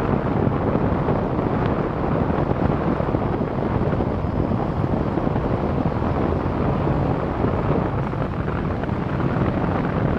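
Steady rushing wind and low rumble inside a moving aerial tramway cabin travelling along its cables.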